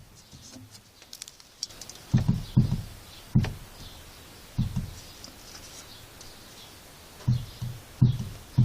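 A few dull knocks and thumps at uneven intervals, the sharpest about three and a half seconds in, with faint bird chirps in the first two seconds.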